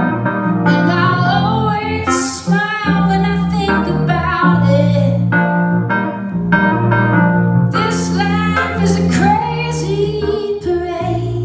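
Live band music: a woman singing over sustained keyboard and bass chords.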